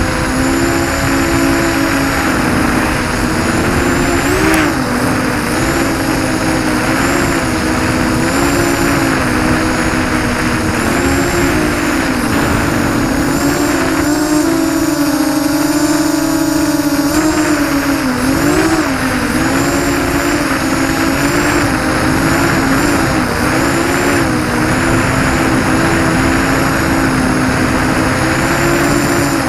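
ZMR-250 racing quadcopter's electric motors and propellers whining in flight, recorded on the quad itself, over a steady rush of air. The pitch wavers with the throttle, rising briefly about four seconds in and again just past halfway.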